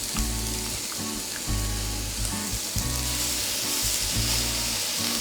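Thick-cut bacon sizzling as it fries in a pan, a steady hiss.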